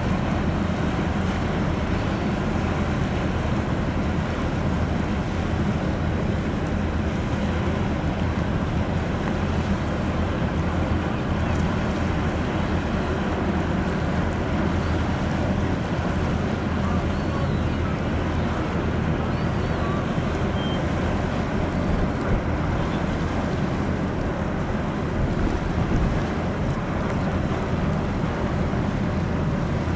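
Steady wind noise on the microphone, a continuous low rumble, mixed with the wash of water.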